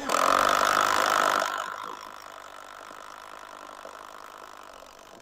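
Cordless drill boring a hole into a wooden board, its motor whining steadily. The whine is loudest for the first second and a half, then drops and carries on more quietly.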